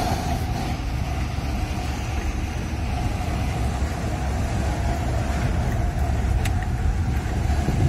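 A truck's diesel engine running steadily as it climbs a mountain road. It is heard from inside the cab with the window open, so there is road and air noise over the low rumble.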